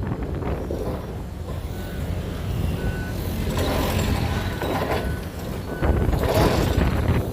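A construction vehicle's reversing alarm beeping about once a second over the heavy, steady rumble of machinery working on the site.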